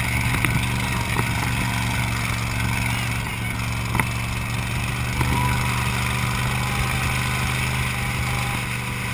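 Dune buggy engine running steadily at speed across sand, its even drone mixed with wind rushing past the open frame.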